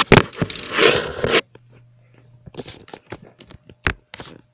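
Handling noise: a loud scraping, rustling burst for about a second and a half, then scattered clicks and knocks, one louder knock near the end, as toy cars and the recording phone are moved about.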